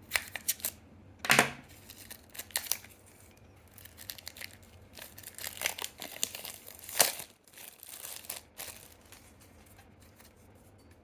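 Packaging being unwrapped by hand: irregular crinkling and tearing of plastic wrap and cardboard sleeves, with louder rips about a second in and again about seven seconds in.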